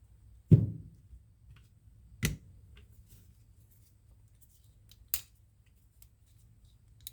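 Folding pocket knife blades being flicked open and shut by hand: three sharp clicks spaced a couple of seconds apart, the first the loudest with a short low ring after it, then a faint tick near the end.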